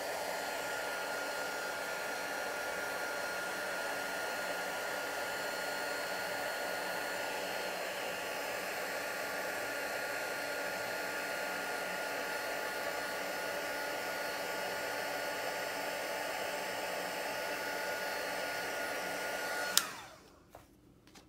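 Handheld craft heat embossing tool running steadily, a fan blowing with a high motor whine, melting white embossing powder. It is switched off with a click near the end and the whine runs down.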